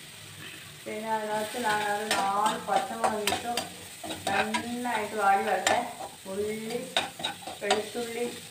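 A metal slotted spoon stirs and scrapes onions in an aluminium kadai, with repeated clanks against the pan and a wavering metallic squeal from the scraping, over frying onions sizzling in oil.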